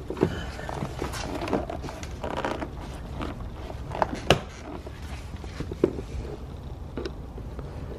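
Handling noise from a car's interior door panel: plastic trim clicks and scrapes as the cap over the door-pull screws is lifted and a Phillips screwdriver works the screws beneath it. Scattered sharp clicks, the sharpest about four seconds in.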